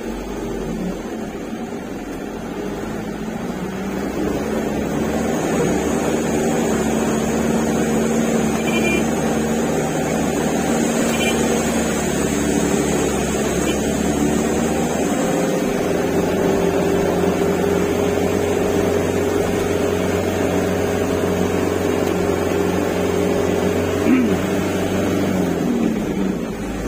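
Truck engine running under load as the truck drives on. It grows louder over the first few seconds and then holds a steady note, with a brief change in engine pitch and a short bump about 24 seconds in.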